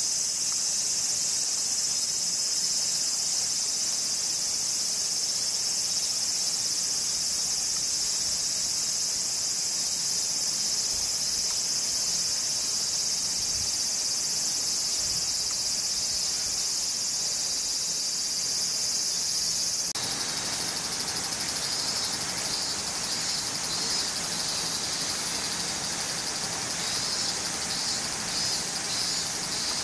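Loud, steady, high-pitched chorus of insects. About two-thirds of the way in it changes abruptly to a quieter, pulsing insect trill.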